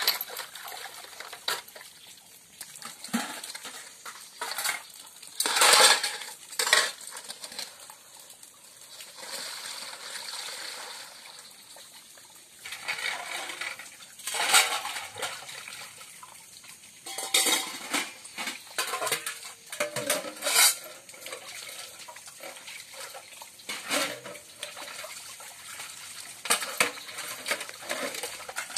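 Stainless steel plates, pots and bowls clanking and clinking irregularly as they are washed by hand, with water splashing in a steel basin.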